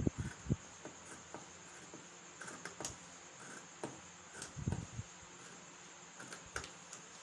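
Scissors cutting through several layers of folded Ankara cotton wax-print fabric: irregular short snips and crunches of the blades closing, with a couple of low thumps, one right at the start and one about four and a half seconds in.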